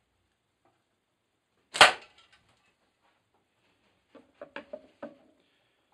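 A catapult banded with a single strand of TheraBand Gold shoots a 14 mm lead ball into a hanging cat-food tin: one sharp, loud metallic smack about two seconds in as the ball busts and slits the tin. A few quieter short knocks follow a couple of seconds later.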